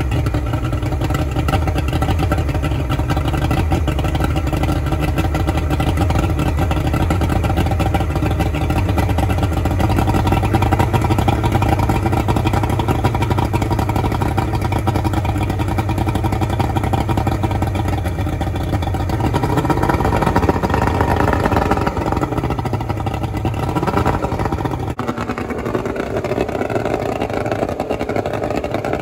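1989 Mercury Black Max 135 two-stroke V6 outboard idling right after a cold start, run on a flushing hose out of the water. The engine speed rises and falls a little about twenty seconds in, and the sound is slightly quieter near the end.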